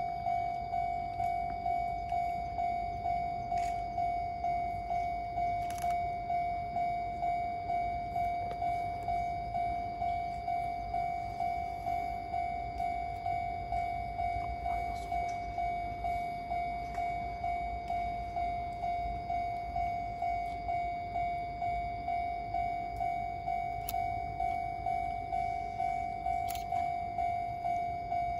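Japanese level-crossing warning bell ringing steadily, one high electronic ding repeating about three times every two seconds: the crossing is closed, barriers down, for an approaching train.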